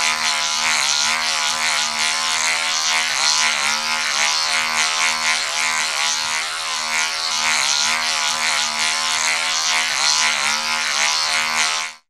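An engine running at a steady speed, with a few brief dips in pitch. It cuts off abruptly near the end.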